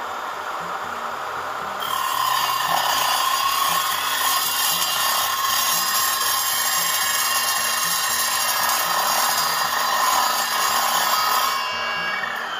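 PAX PX-M6 sliding miter saw running on its slow speed setting, its multi-purpose blade cutting through steel about 2.3 mm thick. A harsh, high grinding screech starts about two seconds in, holds steady, and stops shortly before the end. As the cut stops, the blade's whine begins to fall.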